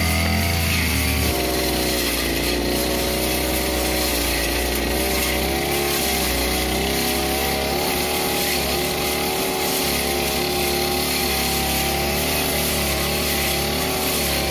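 Backpack brush cutter with a 328 two-stroke engine running at high speed, its short blade cutting through tall, thick grass and weeds. The engine note is steady and wavers slightly in pitch as the blade bites into the growth.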